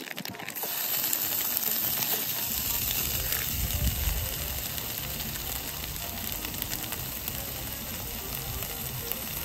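Chipotle-marinated seitan sizzling as it fries in hot oil in a non-stick frying pan. The steady sizzle sets in about half a second in, as the pieces land in the oil.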